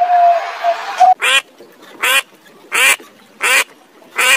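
A short animal call repeated five times at an even pace, each about a quarter second long and about 0.7 s apart. Before the calls begin, about a second in, there is a steady tone over a hiss.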